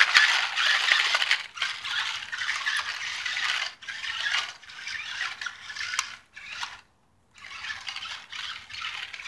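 Toy remote-control stunt car driving, its small electric motors and wheels whirring and rattling in spurts, stopping briefly a few times.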